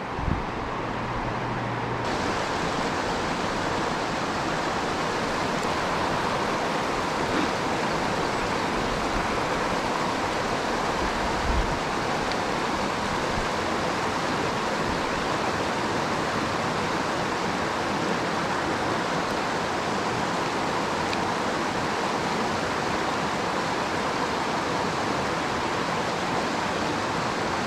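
Creek water rushing steadily over a shallow riffle.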